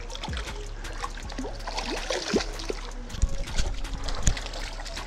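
A hooked brown trout thrashing in shallow water at the creek edge, with a run of irregular splashes, loudest in the second half.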